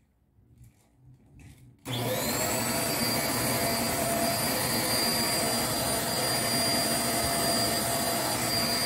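Vacuum cleaner switched on about two seconds in, its motor whine climbing quickly to a steady high pitch, then running steadily while vacuuming a rug.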